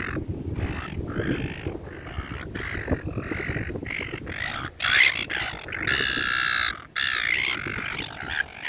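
A crowd of seagulls squawking, many short calls overlapping one another, with one long, loud squawk about six seconds in.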